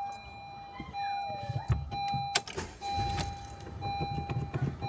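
A steady high electronic beep, held in long stretches broken by short gaps, over low rumbling handling noise, with a sharp click about two and a half seconds in.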